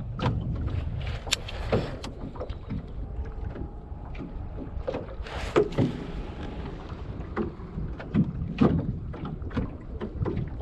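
Water slapping and knocking irregularly against the hull of a small boat, over a steady low rumble.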